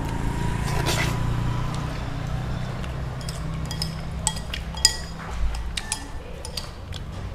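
A metal spoon and chopsticks clinking and scraping against a noodle bowl, with a run of light clinks between about three and six seconds in. A slurp of noodles about a second in, over a low steady hum.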